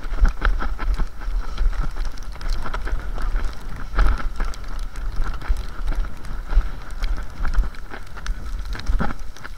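Cross-country skis sliding and scraping on packed snow, with irregular clicks of ski poles planting, over a low rumble of wind on the microphone.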